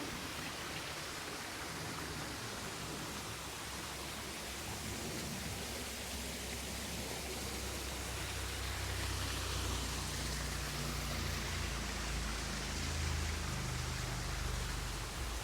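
Steady rush of a waterfall: an even hiss of falling water, with a low rumble building up about halfway through.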